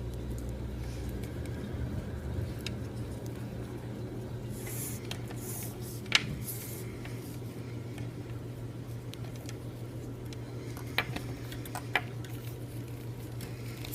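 Paracord being handled and threaded by hand: a few faint rustles and small clicks, over a steady low hum.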